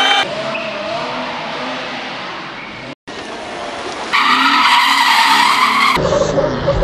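Tyres spinning and screeching in burnouts, heard as a string of short clips joined by abrupt cuts, with a brief dropout about three seconds in.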